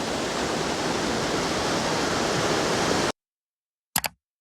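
Steady rushing of a brook and its waterfalls, which cuts off abruptly about three seconds in, followed by two brief clicks near the end.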